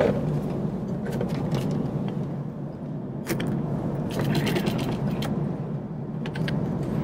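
Steady cabin noise of an Airbus A380 in flight, with a scatter of short plastic clicks and scrapes from handling the seat's in-flight-entertainment controls, the busiest cluster about four to five seconds in.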